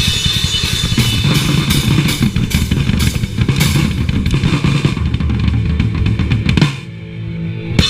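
Live rock band playing loud, the drum kit's bass drum, snare and cymbals striking steadily over the guitars. About seven seconds in, the song stops on a final hit and the instruments are left ringing, then one more sharp hit comes near the end.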